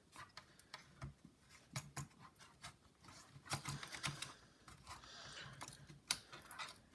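Faint, irregular light clicks and taps of small laptop parts being handled and fitted into the chassis, as the RAM and heatsink go back in.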